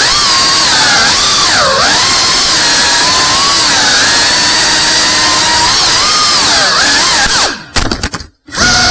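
Cinewhoop FPV drone's motors and ducted propellers whining, the pitch rising and falling as the throttle changes. About seven and a half seconds in, the sound drops away almost to nothing for about a second, then comes back.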